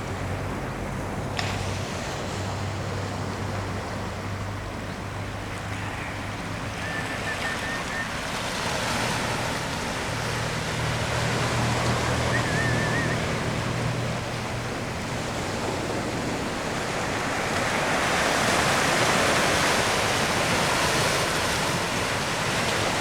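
Ocean surf washing in, swelling twice, with a low steady hum underneath and a couple of faint short chirps.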